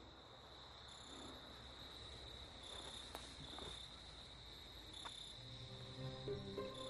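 Faint crickets trilling: a steady high trill, with short higher chirps breaking in now and then and a few faint clicks.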